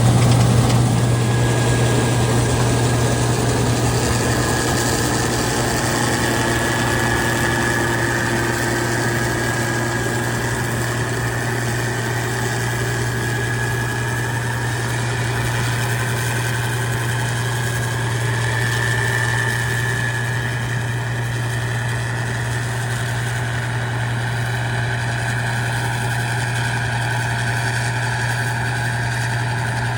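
A combine's diesel engine running steadily, with a strong low drone and a faint high whine over it.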